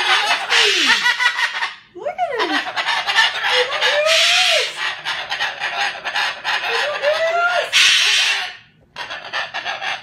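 Moluccan cockatoo making long, harsh, rasping screeches with a few sliding pitched notes mixed in, in three long bouts separated by short breaks about two seconds and nine seconds in. The strange noises are the bird's show of displeasure at a cardboard house.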